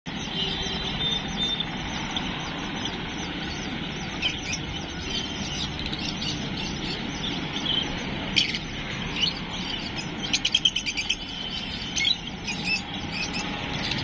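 Caged lovebirds chirping and chattering in shrill, short calls over a steady background hiss, with a quick run of sharp chirps a little past the middle.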